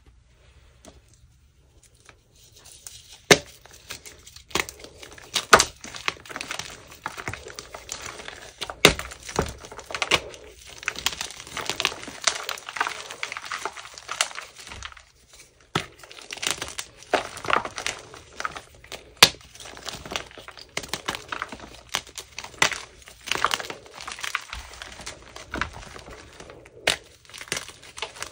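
Blocks of gym chalk being crushed and crumbled by hand: a dry, crunchy crumbling with many irregular sharp snaps as chunks break apart, starting about two seconds in.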